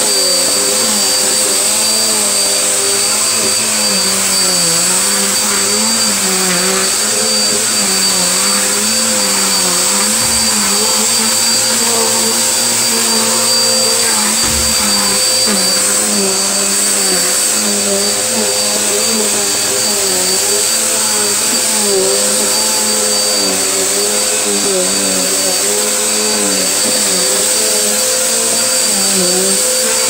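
Upright bagless vacuum cleaner running continuously as it is pushed over a rug: a steady motor whine, with the lower hum wavering slightly in pitch as the head moves.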